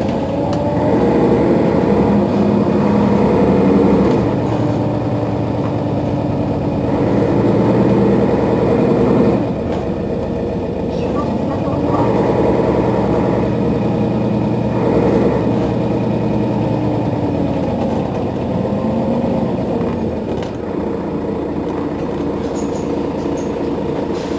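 Mercedes-Benz Citaro Facelift city bus's rear-mounted engine idling while the bus stands still, its note swelling and easing several times.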